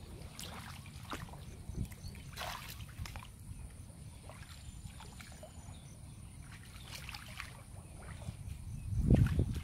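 Water sloshing and splashing around feet wading through shallow muddy water, with scattered small snaps and rustles as leafy green stems are picked. The sloshing grows louder near the end.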